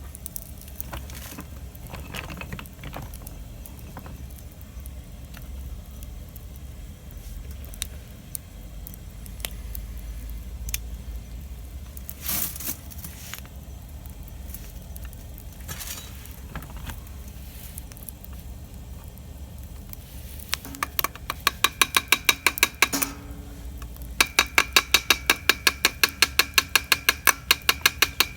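Wood fire crackling and popping with scattered sharp cracks over a low rumble. From about two-thirds of the way through, a loud, regular clicking of about four clicks a second with a slight ringing tone takes over; it pauses briefly and then resumes.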